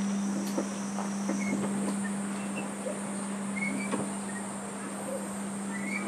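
Large bronze Japanese temple bell (bonshō) humming on one steady low tone as it slowly dies away after a strike from the log striker. Insects drone steadily and high behind it, with a few faint short chirps.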